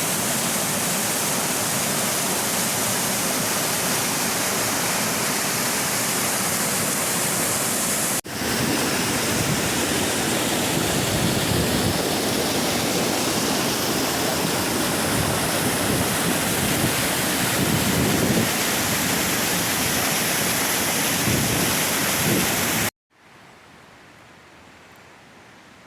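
Waterfall: a steady rush of falling water, broken by a brief cut about eight seconds in. Near the end it stops abruptly, giving way to a much quieter outdoor background.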